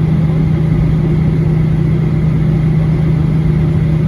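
Steady cabin noise inside a Boeing 737-800 airliner: a constant low drone of the jet engines and air systems, with a steady hum and no change in pitch.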